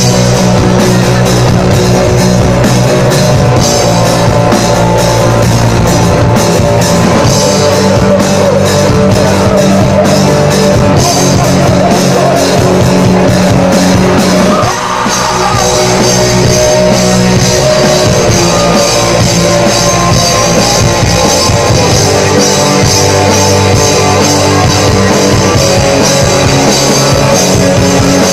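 Black metal band playing live: distorted electric guitars and a drum kit with busy cymbals, loud and dense, with a brief break and a falling guitar glide about halfway through.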